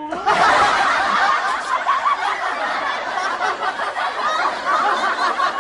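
Many people laughing and chuckling together, cutting in suddenly and going on at an even level.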